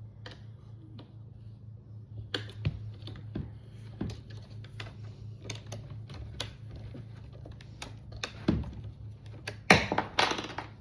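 Irregular clicks, taps and clatter of small metal hardware and tools being handled while a bar stool is assembled with T-handle wrenches, starting about two seconds in and getting louder near the end. A steady low hum runs underneath.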